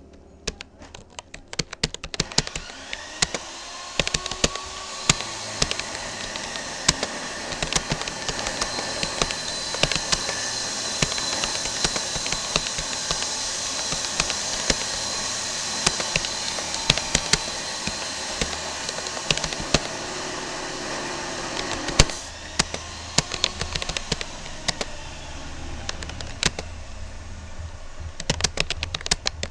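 Continuous fast typing on a Rapoo computer keyboard: a steady stream of key clicks. Behind it, a steady whirring noise with a faint whine builds over the first few seconds and stops abruptly about three-quarters of the way through.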